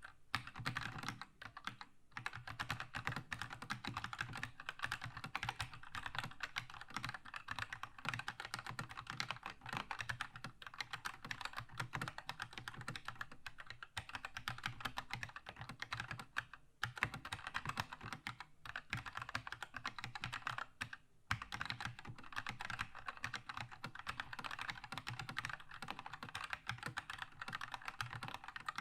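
Fast, continuous typing on a Keychron K2 mechanical keyboard with red linear switches, a dense run of key clacks with brief pauses about two, seventeen and twenty-one seconds in.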